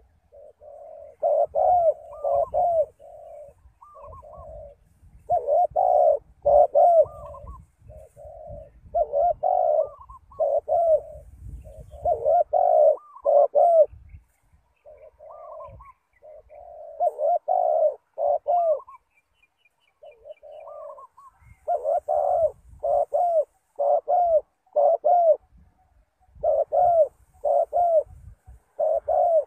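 Spotted dove cooing: phrases of several short, gliding coos, repeated every three to four seconds.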